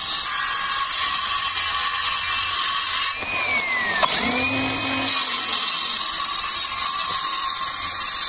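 Homemade cordless circular saw with a wooden blade guard running and cutting through plywood: a steady high motor whine with blade noise. About three seconds in the pitch falls, then jumps back up about a second later.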